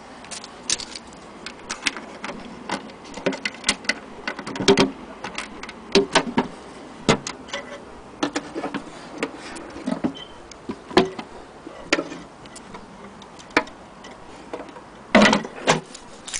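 Irregular clicks, taps and knocks from hands handling the wooden carrying cover of an antique Husqvarna Freja hand-crank sewing machine. A few louder knocks come about five seconds in and again near the end.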